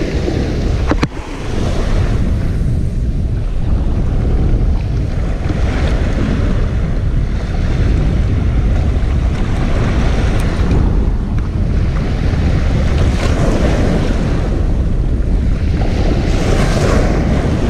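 Wind buffeting the microphone over sea surf washing against a rocky shore, the wash swelling up every few seconds.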